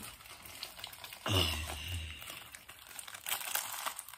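Plastic packaging bag rustling and crinkling as it is handled and pulled open with the teeth, with a short low sound about a second in.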